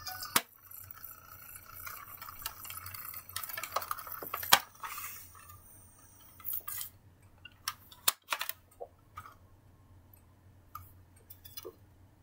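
Plastic clicks and clatter of a portable DVD player's disc lid being opened and the disc handled, with sharp clicks scattered through and the loudest about four and a half seconds in.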